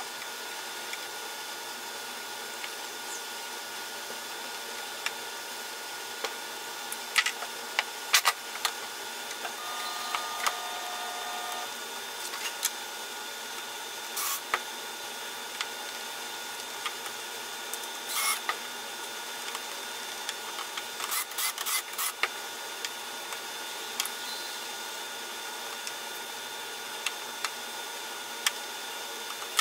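Workshop tool sounds: a cordless drill runs briefly for about two seconds about a third of the way in. Scattered sharp clicks and knocks come from tools and boards being handled, over a steady background hiss.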